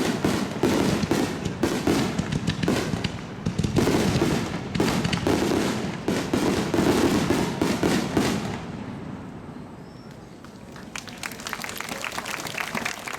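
Aerial fireworks bursting in rapid succession, a dense barrage of booms and crackles for about eight seconds, then thinning out to scattered fainter crackling near the end.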